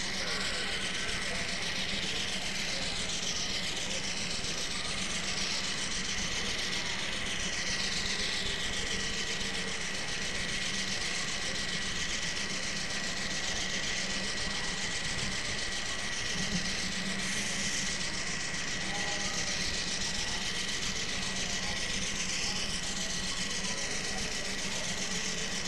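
Train running on rails: a steady rumble and hum with a constant thin high whine, and repeated short squeals that slide in pitch.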